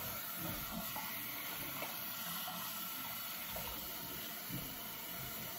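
Bathroom faucet running steadily into a sink.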